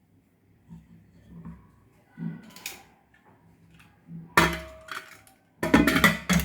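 Metal kitchen pots and utensils knocking and clinking, one strike leaving a short ring, with a denser, louder clatter near the end.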